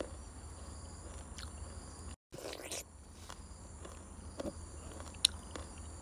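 Faint outdoor ambience: a steady high insect hum over a low rumble, with a few soft clicks and rustles and a brief cut to silence about two seconds in.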